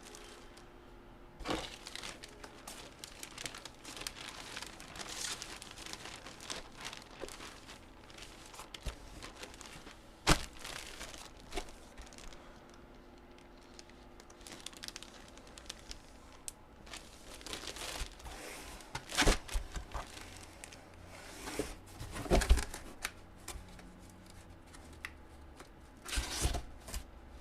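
Packaging being handled during a collectible box break: intermittent crinkling and tearing rustles, with a few sharp taps or knocks.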